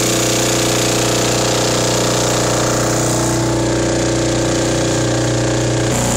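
A Briggs & Stratton 5.75 hp lawn-mower engine, converted to drive an outboard's lower unit, running steadily at speed as it pushes a small boat.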